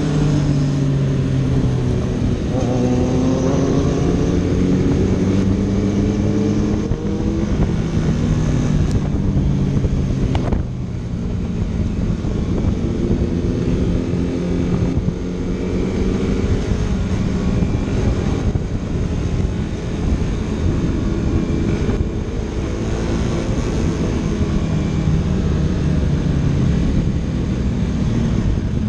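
Sport-bike engines with full-system exhausts running and revving, their pitch rising and falling again and again, with a short sharp crack about ten seconds in.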